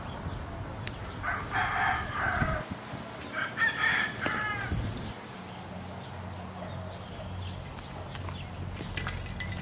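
A rooster crowing twice, each crow about a second long, with a few faint clicks from a hand trowel digging in the soil.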